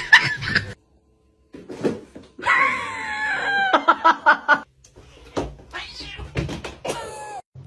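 Domestic cat yowling: a long, drawn-out caterwaul that slides down in pitch for about two seconds, followed by fainter, shorter cries, with a few sharp knocks in between.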